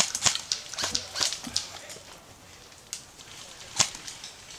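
Airsoft guns firing single shots: sharp snaps at irregular intervals, several close together at the start, a lull in the middle, then a few more.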